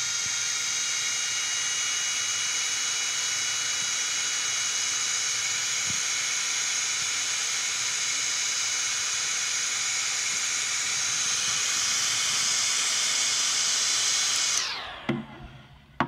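Electric heat gun blowing hot air to shrink heat-shrink tubing: a steady fan whine with several high tones over a hiss. It is switched off near the end and the tones slide down as the fan winds down.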